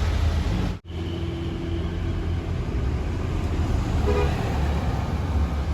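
Diesel bus engine running with a steady low rumble on a climb, with a short horn toot about four seconds in. The sound cuts out for an instant under a second in.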